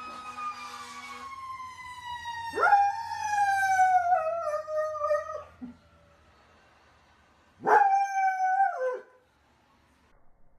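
A dog howls along with a siren that is slowly winding down in pitch. After a short pause, it gives one more long howl on its own.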